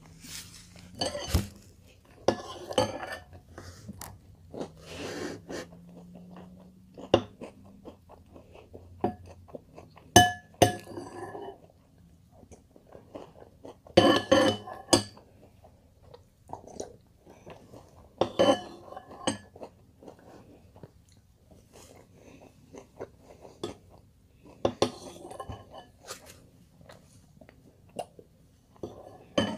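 Metal spoon clinking and scraping against a glass bowl of Cheerios in milk, a spoonful every few seconds, with the chewing of the cereal in between.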